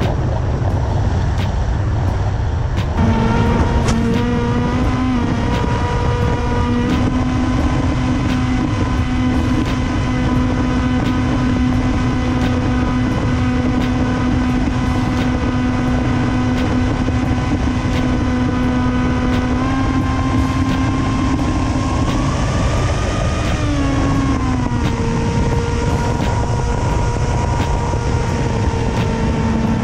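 Electric motors and propellers of an FPV drone heard through its onboard camera: a steady pitched whine over wind rush. The whine comes in a few seconds in, holds a constant pitch for long stretches, then rises and falls back with the throttle near the end.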